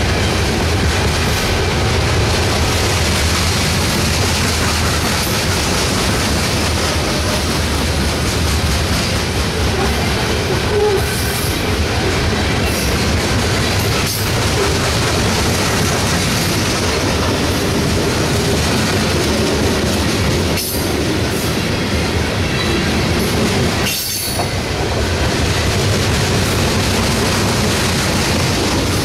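CSX coal train's hopper cars rolling past close by: steady, loud rumble and clatter of steel wheels on the rails.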